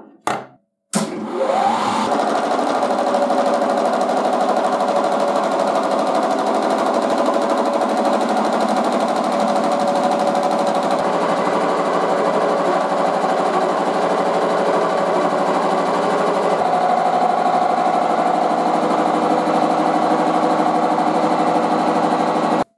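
An electric power tool's motor starting up about a second in, its pitch rising briefly, then running steadily with a slight change in tone twice, and cutting off abruptly near the end.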